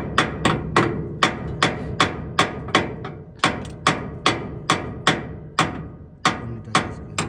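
Repeated hammer blows on metal, about two to three a second, each ringing briefly.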